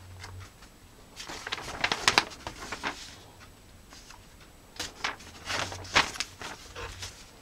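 Paper rustling and crinkling as a printed warranty card is handled and turned over, in two spells of irregular rustles, one about a second in and another about five seconds in.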